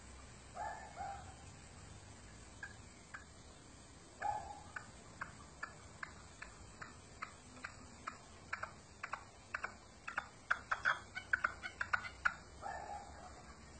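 Caged partridge calling. A few short two-part clucks come first, then a run of short sharp chuck notes that speeds up and grows louder, peaking near the end, followed by another two-part call.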